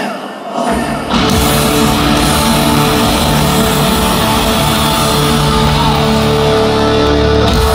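Heavy metal band playing live in a large hall. After a brief lull, the full band comes in about a second in on a long sustained chord with distorted guitars. The chord cuts off near the end as the song closes.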